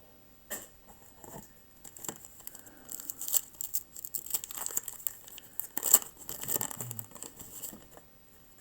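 Waxed-paper wrapper of a 1985 Topps baseball card wax pack being torn open and crinkled, in a run of irregular crackly rustles and snaps that stop shortly before the end.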